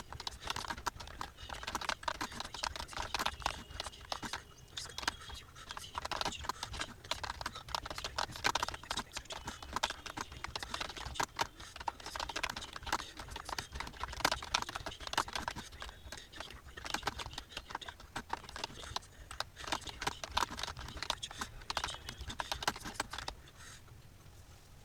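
Fast typing on a computer keyboard: a dense, irregular run of key clicks that stops near the end.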